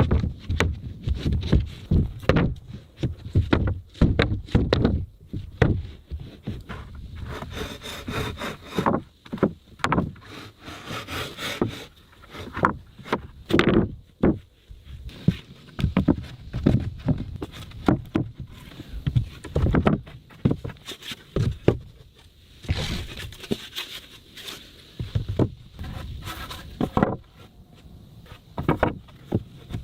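Wooden floorboards being laid and fitted by hand: irregular knocks of wood on wood and tools on wood, with stretches of scraping or sawing.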